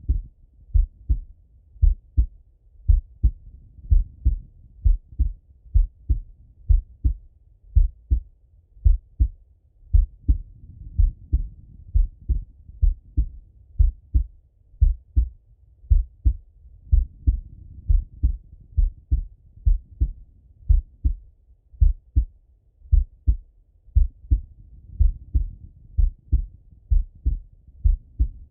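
A man's slow, resting heartbeat heard through a Littmann stethoscope: a steady double thump (lub-dub) about once a second. Soft breath sounds swell in the background every seven seconds or so.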